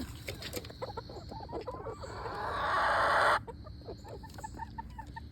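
A flock of backyard hens clucking and calling as they eat, many short calls overlapping. About two seconds in, a rushing hiss swells for a second and a half and cuts off suddenly.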